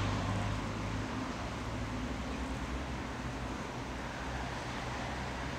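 Steady background hum and hiss of distant road traffic, with no distinct events.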